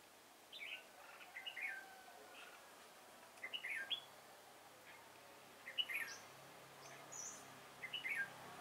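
Red-whiskered bulbuls singing: about five short, bright chattering phrases, a second or two apart.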